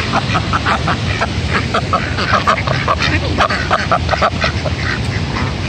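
Ducks quacking over and over in quick, short calls, over the steady rush of flowing floodwater.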